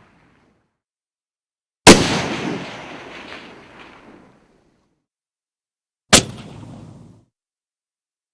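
Two sniper rifle shots about four seconds apart, each a sharp crack followed by a rolling echo. The first echo dies away over about two seconds, the second over about one.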